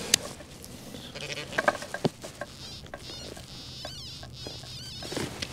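Handheld metal-detecting pinpointer probed through loose dug soil, giving a faint wavering high-pitched buzz, with small scrapes and clicks of the probe and crumbling dirt.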